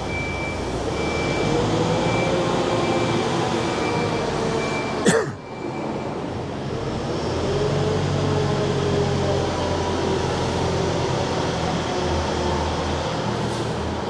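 Manitou telehandler's diesel engine working, its pitch rising and falling as the loader pushes into and lifts grain. There is a single sharp click about five seconds in.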